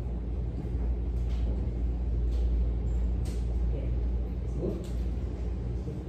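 Steady low rumbling hum with faint scattered clicks.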